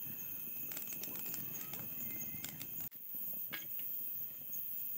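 Wood fire crackling in a clay chulha, with scattered small pops, over steady cricket chirping in the background.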